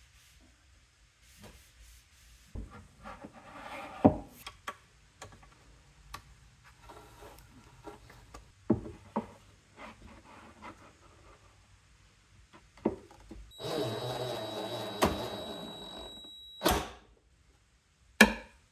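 Wooden parts being handled, set down and knocked together, with several sharp knocks. About two-thirds of the way in, a small power tool runs for about three seconds with a steady whine. Two more loud knocks follow near the end.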